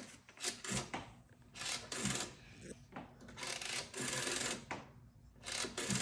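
Rotary telephone dial being turned and spinning back, one digit after another: a string of short whirring, clicking returns.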